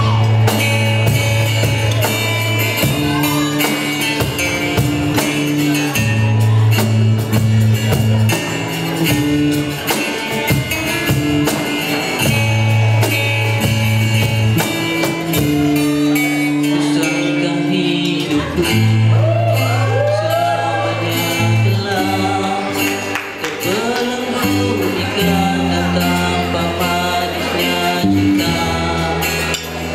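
Live acoustic band playing: three acoustic guitars over a cajon beat. A man starts singing about two-thirds of the way in.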